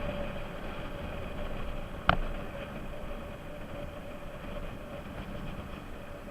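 Bajaj Pulsar RS200's single-cylinder engine running steadily at riding speed under wind noise, with one sharp click about two seconds in.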